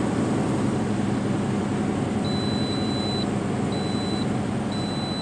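Inside a tractor-trailer cab, the engine and road drone steadily. About two seconds in, a high dashboard warning chime begins beeping, roughly once a second: the truck's forward-collision radar is warning that it is blocked by snow and ice.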